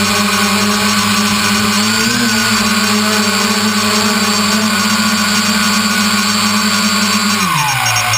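Brushless motors and propellers of a multirotor drone heard from its onboard GoPro: a loud, steady buzzing whine. About seven and a half seconds in, the pitch drops steeply as the motors throttle down, with the drone coming in to land.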